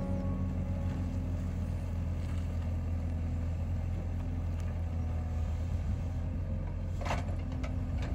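Excavator's diesel engine running steadily with a low rumble, with a few sharp knocks about seven seconds in.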